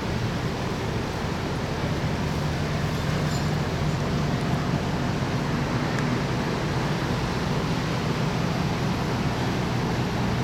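Strong wind blowing steadily across the microphone, a continuous low rumbling rush with no breaks.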